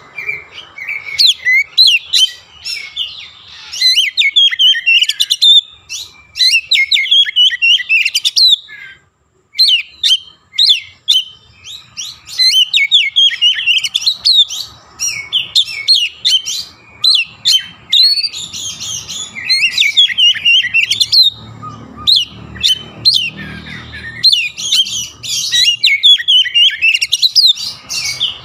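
Oriental magpie-robin singing loudly in fast runs of sharp rising and falling whistles, with short gaps and one brief pause partway through. The song mixes in mimicked Javan myna calls.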